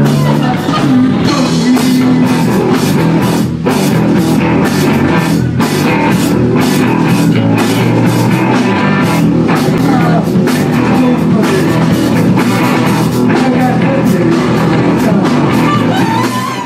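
Live rock band playing loudly: electric guitar and drum kit, with a man singing.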